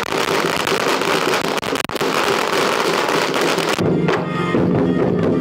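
A string of firecrackers going off in a rapid, dense crackle for nearly four seconds, then a sudden cut to music.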